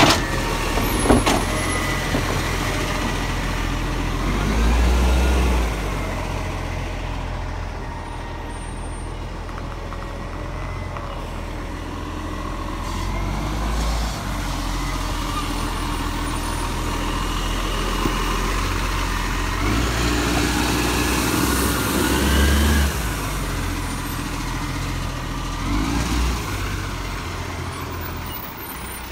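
Automated side-loader garbage truck running close by: a steady diesel drone under whines that rise and fall from its hydraulics. A couple of sharp knocks come about a second in.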